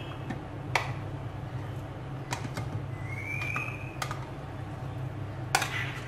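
Spoon and plastic food-processor bowl clicking and knocking against a glass bowl as a thick minced chicken mixture is scraped out: a handful of sharp clicks spread through, with one short rising squeak about halfway. A steady low hum runs underneath.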